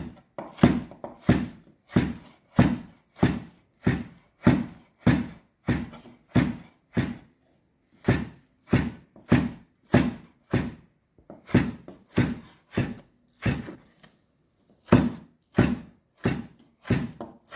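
Heavy chef's knife chopping raw beef on a wooden cutting board, hand-mincing it finely. The blows come about two a second in a steady rhythm, with two short pauses.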